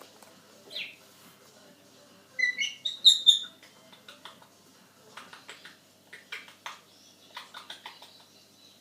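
Pet parrot chirping and whistling in short high-pitched notes. The loudest is a cluster of sharp whistles about two and a half seconds in, followed by a run of quick, clipped chirps.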